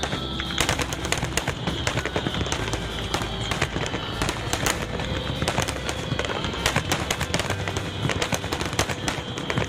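Fireworks going off in rapid, irregular succession: many sharp bangs and crackles packed close together, like a barrage, with a faint tone drifting slowly down behind them.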